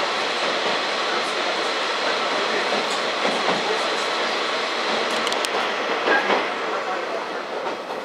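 KiHa 40 diesel railcar running along the line, heard from inside the car: a steady rush of running noise with a few sharp rail clicks. The noise eases somewhat near the end.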